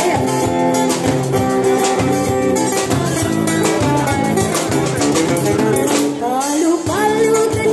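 Live band playing an upbeat Iban joget dance tune on guitars and drum kit, mostly instrumental, with a voice sliding in near the end.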